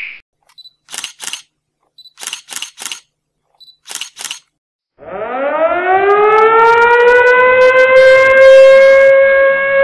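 A few short clicks in groups of two, three and two, then about halfway through a siren winds up, its pitch rising and then holding steady.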